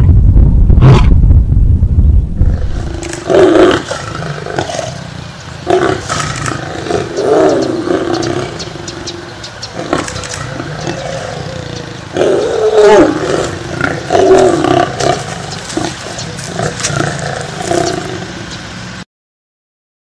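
Lion roaring, a loud, deep rumble for the first few seconds, followed by a long run of quieter, shorter growling calls that bend up and down in pitch. The sound cuts off suddenly about a second before the end.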